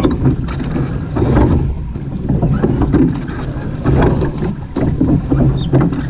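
Surf boat being rowed hard: regular surges of oar strokes through the water, about three strokes every four seconds, over a steady rush of wind and water.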